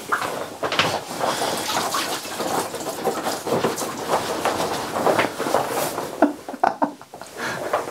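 Bathwater splashing and sloshing irregularly as legs in stockingfoot chest waders are lifted out of a full tub, with water running and dripping off the waders.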